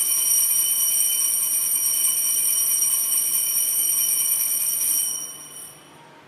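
Altar bells ringing steadily for about five seconds, then fading out near the end. This is the ringing that marks the elevation of the chalice at the consecration.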